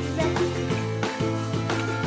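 Background music with a steady beat and pitched melody notes.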